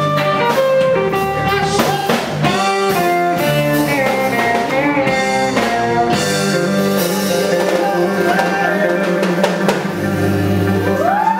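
Live blues band: two electric guitars, one a gold-top Les Paul-style guitar, trading lead lines with bent notes over a drum kit. The drum hits thin out about halfway through, leaving held guitar notes, with a wide upward string bend near the end.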